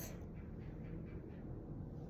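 Quiet room tone: a faint, steady low hum with no distinct event.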